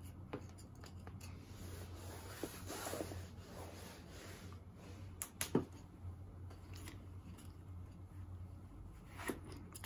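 Soft fleece blanket rustling and dragging as a Shiba Inu puppy clings to it and tugs at it, with a few sharp taps about five seconds in and again near the end.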